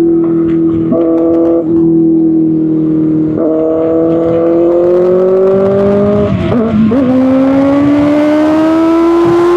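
Kawasaki Ninja ZX-6R's inline-four running loud through an Arrow Pro Race exhaust under way, its pitch sagging slowly, dropping sharply about six and a half seconds in, then climbing steadily as it pulls up through the revs.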